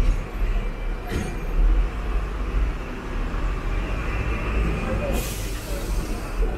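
Hong Kong double-decker tram running, a steady low rumble with a sharp knock about a second in. A loud hiss starts about five seconds in and stops near the end.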